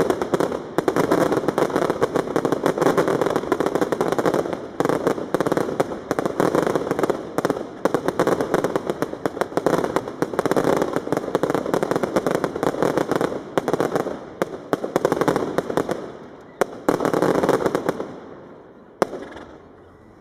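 Fireworks finale: a dense, continuous barrage of bangs and crackling from many aerial bursts at once. It dies away about two seconds before the end, leaving one last single bang.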